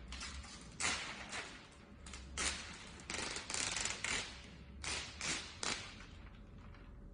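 Thin PE plastic film of a roll of disposable car floor mats crinkling and rustling as it is unrolled and handled: a series of short rustles, with a longer one about halfway through.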